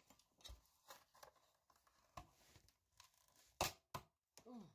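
Faint clicks and scrapes of a small loudspeaker driver being handled and pried at, its parts glued hard together, with two sharper knocks in quick succession about three and a half seconds in.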